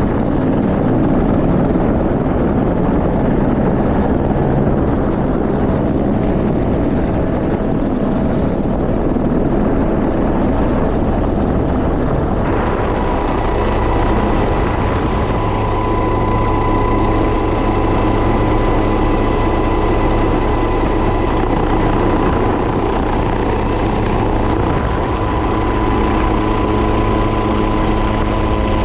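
Firefighting helicopter running close by: a loud, noisy rotor rumble that changes abruptly about halfway through to a steadier rotor drone with a high, steady turbine whine over it.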